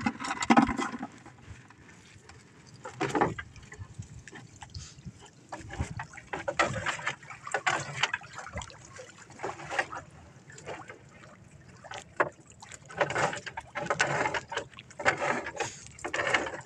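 Water splashing and streaming off net traps as they are hauled one after another out of the sea into a small wooden boat, coming in irregular bursts.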